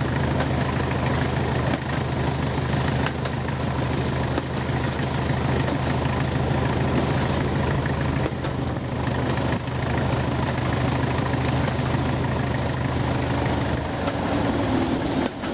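Class 20 diesel locomotive's engine working steadily, with a high whistle above the low engine note. Near the end the engine note drops away and the whistle falls in pitch.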